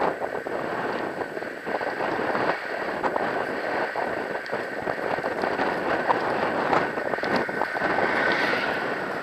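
Longboard wheels rolling on rough asphalt: a steady rushing hiss full of small irregular clicks from the road grit, with wind on the microphone and a thin steady whine above it.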